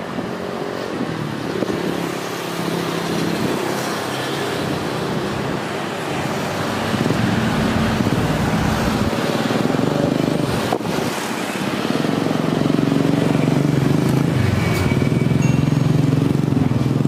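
Steady engine noise with a low hum that wavers, growing louder about seven seconds in and again near twelve seconds.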